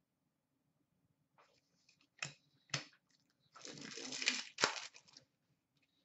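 A hockey card pack wrapper being torn open and crinkled: a couple of sharp crackles about two seconds in, then a longer crinkling tear about halfway through and a last crackle.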